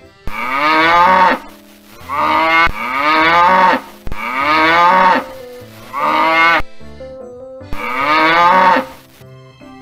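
Domestic cattle mooing, six calls in a row about a second apart, each rising and then falling in pitch, over soft background music.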